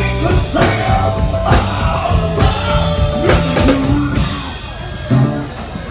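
Live rock band playing: drum kit hits and electric bass, with a male singer singing into a microphone.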